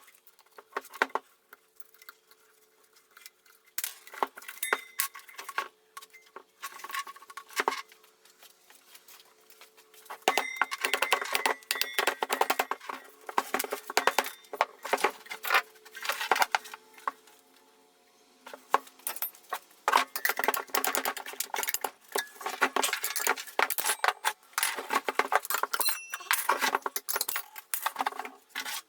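Small metal pieces clinking and clattering in irregular runs as they are handled, sparse at first and busier from about a third of the way in, over a faint steady hum.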